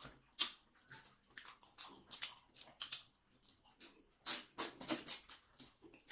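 Close-miked eating sounds: irregular wet clicks and smacks of chewing, with a denser run of them about four seconds in.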